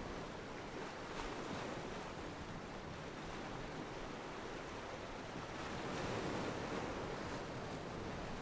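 Ocean surf: a steady rush of waves breaking and washing up the beach, swelling a little about six seconds in.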